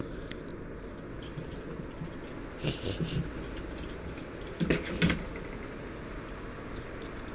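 A long-haired Maine coon mix cat making short whimpering calls, a pair about a third of the way in and another pair about two-thirds through, over a light high jingling.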